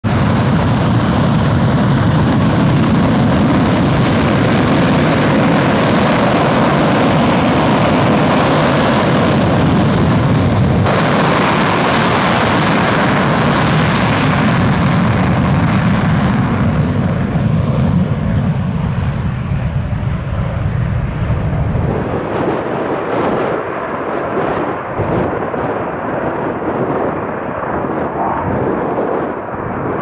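MiG-21 LanceR C fighter's Tumansky R-13 turbojet running at full power and on afterburner for a take-off run: a loud, steady jet noise. It grows duller in the second half, losing its highs as the jet rolls away down the runway.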